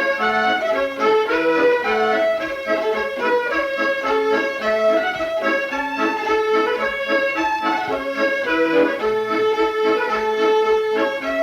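Accordion playing a tune from a medley, melody over chords, with a steady beat in the bass.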